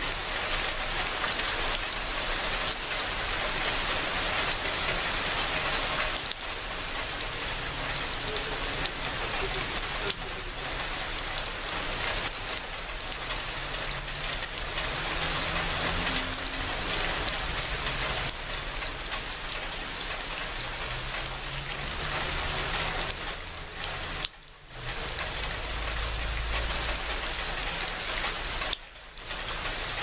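Steady rain falling, with water dripping off the edge of a corrugated roof. The sound briefly falls away twice near the end.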